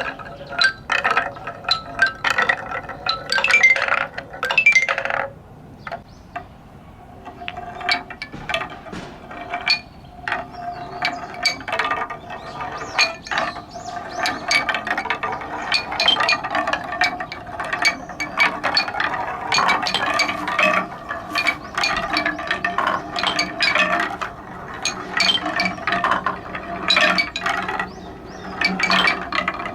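Many balls rolling and clattering down a wooden stair-step marble run: a dense, nearly continuous run of clicks and knocks on wood, with a ringing tone under them. It thins out briefly about five seconds in, then builds up again.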